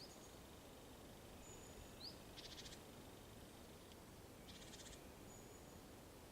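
Faint songbird calls: a couple of quick rising chirps and two short buzzy trills about two seconds apart, over a quiet steady hiss.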